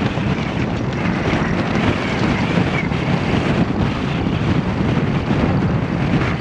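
Steady wind buffeting the microphone, with wind and water noise aboard a sailboat under way in rough conditions.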